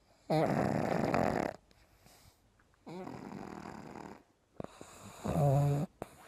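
A pug snoring: three long snoring breaths, the first the loudest, the last with a pitched, buzzing edge.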